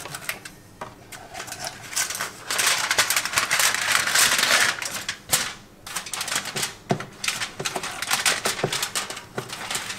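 Aluminium foil crinkling and crackling as it is peeled back off a food tray, loudest in the middle stretch, with scattered sharp crackles after.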